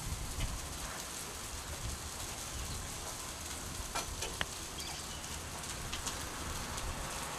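Faint outdoor background noise: a steady hiss with a low rumble, and two faint clicks about four seconds in.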